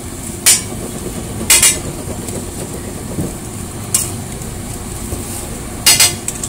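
Metal spatula clanking and scraping on a large flat griddle where burger patties are frying, over a steady sizzle. The sharp clinks come about half a second in, twice around a second and a half, once about four seconds in, and twice near the end.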